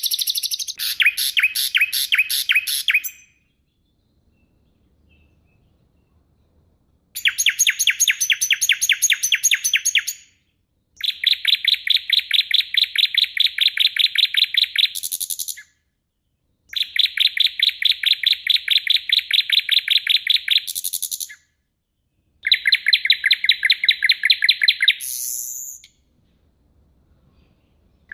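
A songbird singing in phrases of rapid, sharply repeated high notes, the fast 'tembakan' bursts used as training song for cage birds. There are five bursts of about three to four seconds each, with a longer pause after the first.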